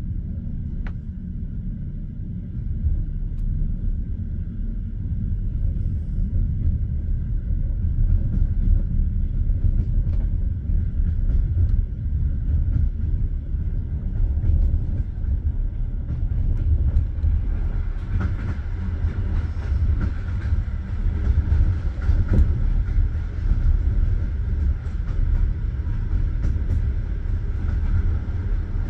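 Passenger train carriage rolling along the track: a steady low rumble of wheels on rail, with the knock of the wheels over rail joints. It grows a little louder about three seconds in.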